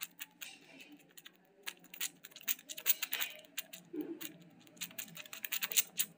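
Faint, irregular rapid clicking and crackling, thickest around three and six seconds in.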